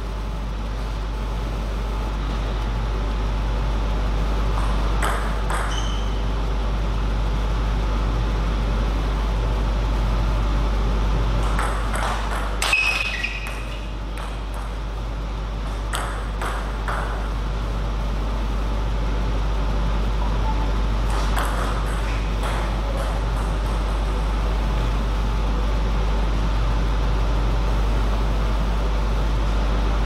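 Celluloid-type table tennis ball clicking off bats and table in a few short clusters, the sharpest and loudest about halfway through, over a steady low hum in the hall.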